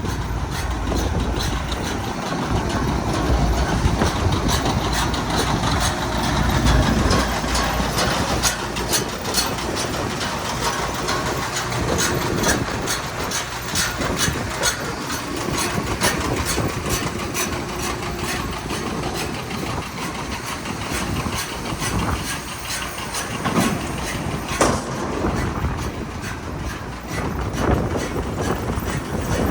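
Tractor-driven New Holland Roll-Belt 560 round baler running: a steady mechanical rumble with a dense, rapid rattle of clicks.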